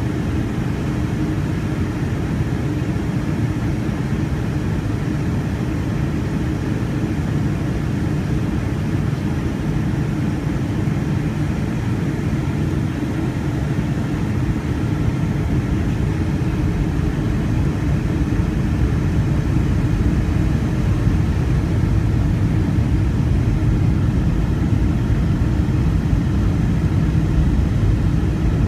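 Cabin noise inside a Boeing 757-200 on descent, heard from a window seat over the wing: a steady low rush of engine and airflow, growing slightly louder near the end.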